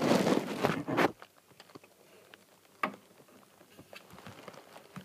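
Rustling and scraping as a hollow log hide is shifted over wood-shaving bedding, loud for about the first second, then faint scattered clicks with one sharper click near three seconds in.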